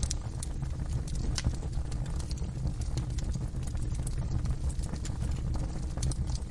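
Wood fire burning in a fireplace: a steady low rumble with irregular sharp crackles and pops, a loud pop about a second and a half in.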